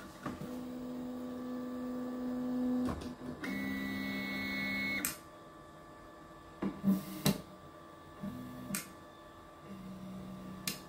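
Artillery Sidewinder X2 3D printer's stepper motors whining in steady tones as the print head moves. There are two longer moves in the first half, then several short moves about a second long with sharp clicks between them, as the printer takes its bed measurements before starting to print.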